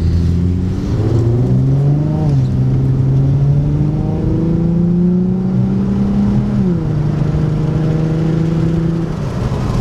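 Infiniti G35x's 3.5-litre V6 engine pulling under acceleration. Its pitch climbs, falls away sharply about two seconds in, climbs again slowly, and falls once more near seven seconds before holding steady.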